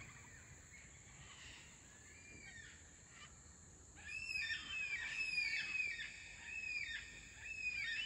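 A flock of black cockatoos calling: faint at first, then a busy run of repeated, overlapping arched calls from about halfway through. A steady high-pitched hum runs underneath.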